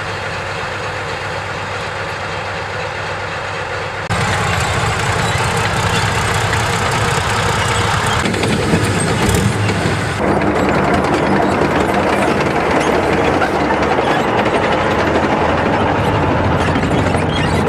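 Engine of a heavy tracked military engineering vehicle running steadily, the sound jumping abruptly at edits about four, eight and ten seconds in and getting louder after the first.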